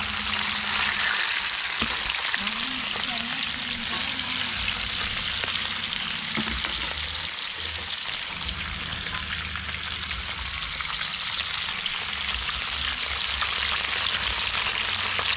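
Fish frying in hot oil: a steady, dense sizzle.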